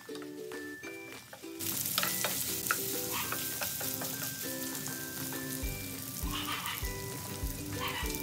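Penne in tuna sauce sizzling in a nonstick frying pan as it is stirred with a spatula, with scattered scrapes and clicks of the spatula. The sizzling comes in suddenly about a second and a half in, over light background music.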